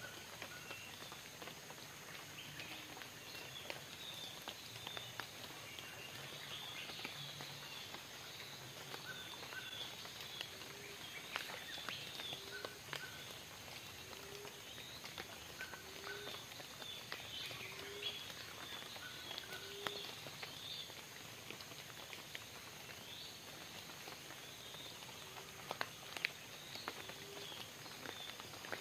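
Tropical forest ambience: many small bird chirps higher up, with a low, short rising call repeating every second or two, and occasional sharp ticks.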